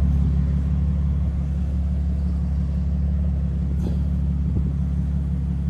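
2007 Ford Taurus SE's V6 idling steadily, heard at the exhaust tip as a low, even rumble, running clean with no smoke after a Seafoam treatment.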